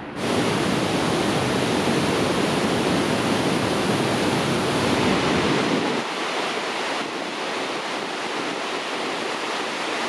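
Steady rushing of the Rhine Falls, a large waterfall, as one even wash of noise. It gets a little quieter, with less low rumble, about six seconds in.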